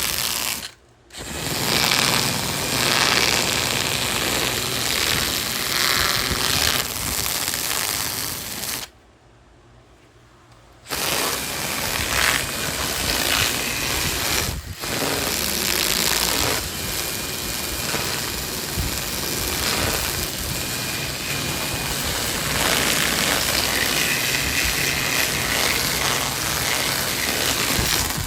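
Power carving tool running and cutting into wood while detailing a carving, steady and loud with uneven changes in pitch and load. It cuts out abruptly twice, briefly about a second in and for about two seconds near the middle.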